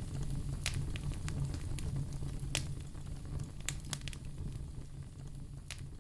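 Wood fire in a fireplace crackling: scattered sharp pops over a low steady rumble, slowly getting quieter.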